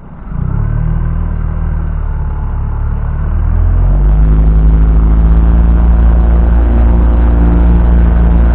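Boat's outboard motor throttled up and running under way: it comes in loud just after the start, steps up to a higher, louder, steady pitch about four seconds in and holds there.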